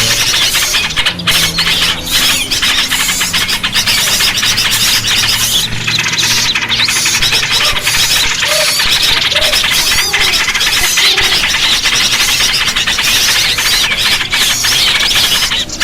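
Dense, loud chattering of many small birds squeaking and chirping over one another without pause: a lure call recording used to draw small birds in.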